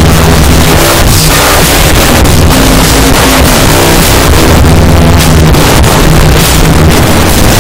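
Extremely loud, deliberately overdriven and clipped music: a harsh hiss across the whole range over a steady low bass tone, with a faint pitched line wavering in the middle, the tune barely recognisable.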